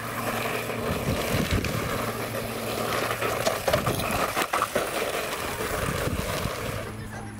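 Electric RC monster truck driving over wood-chip mulch, its motor running as the tyres crunch and scatter the chips, with a scatter of small knocks as it bumps over twigs and a concrete edging. The sound dies down a little before the end.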